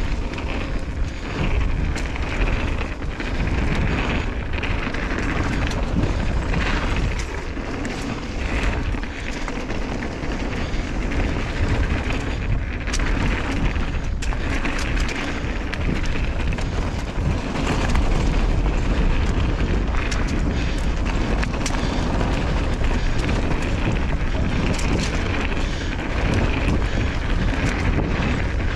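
Mountain bike rolling down a dirt flow trail: a steady rumble of wind on the camera microphone under the hiss of knobby tyres on dirt, with frequent sharp clicks and rattles from the bike over bumps.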